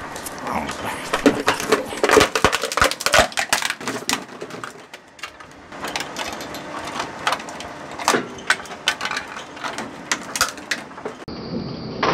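Twin-shaft shredder's steel cutter blades crushing a yellow plastic hard hat: a run of sharp cracks and snaps of breaking plastic, thickest two to three seconds in, then sparser.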